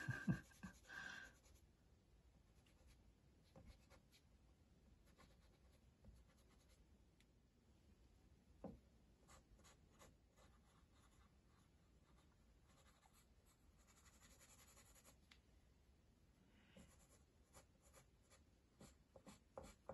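Faint pencil and eraser work on drawing paper: scattered light scratches, taps and rubbing.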